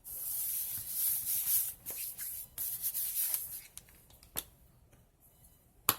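Paper being rubbed and smoothed down by hand in two long strokes, then two sharp taps, the louder one near the end.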